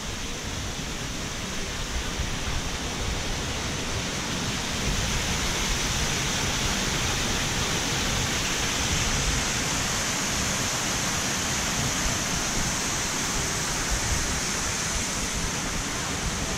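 Water pouring down a man-made rock waterfall and splashing into its pool, a steady rushing that grows louder about five seconds in.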